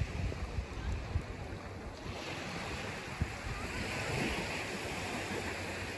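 Sea waves washing onto a sandy beach as the tide comes in, a steady rushing surf, with wind buffeting the microphone in low rumbles.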